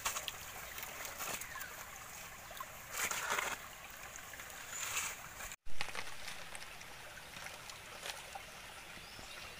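Water trickling and splashing, with a few short louder splashes; the sound cuts out for an instant just past halfway.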